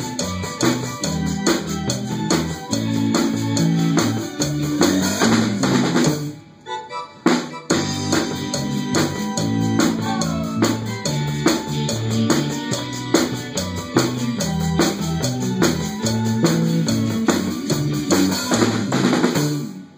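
Live band playing: electric bass, keyboard, timbales and drum kit with a steady beat and rimshots. The band stops briefly about six seconds in, comes back in, and ends near the close.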